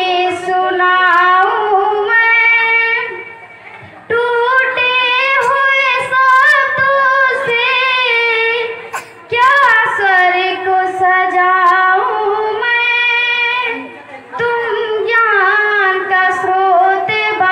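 A girl singing solo into a handheld microphone, holding long notes in phrases with short breaks between them.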